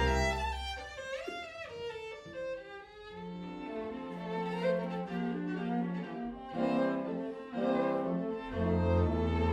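Chamber orchestra strings playing live: a loud low chord fades, then a violin line slides in pitch over held low notes. The lower strings come back in louder near the end.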